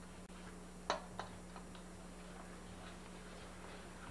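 A mixing utensil knocking against a stainless steel mixing bowl as gingerbread batter is beaten by hand: two sharp clicks about a second in, then light, irregular ticks.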